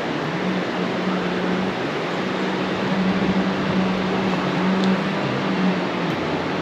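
Steady rush of stream water, an even noise with no breaks, with a steady low hum running underneath.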